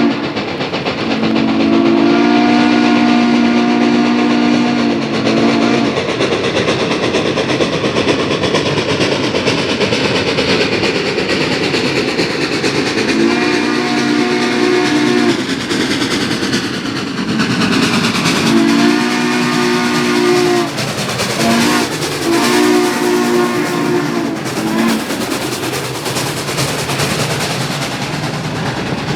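Steam locomotive whistle blowing a chord of several notes at once: a long blast about a second in, then later the long-long-short-long pattern of a grade-crossing signal. Under it runs the steady rushing noise of the working locomotive and train.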